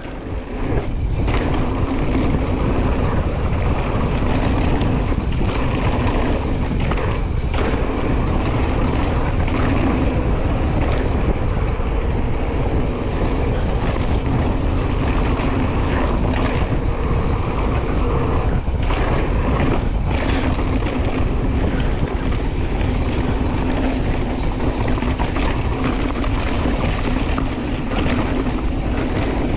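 Wind rushing over the camera microphone and tyres rumbling over a dirt trail as a Chromag Taival hardtail mountain bike is ridden at speed, with a few brief knocks from bumps.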